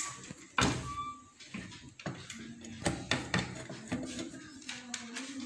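Screwdriver working the terminal screws of a plastic lamp holder while wires are fitted: a string of small clicks and knocks of metal on plastic.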